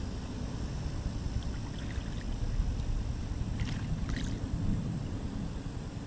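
Small river waves lapping and trickling against a pebble shore at the water's edge, under a steady low rumble of wind on the microphone, with a couple of brief higher splashes about midway.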